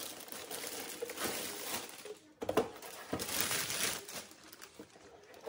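Clear plastic packing bag rustling and crinkling as it is pulled off a robot vacuum, with a short knock about two and a half seconds in.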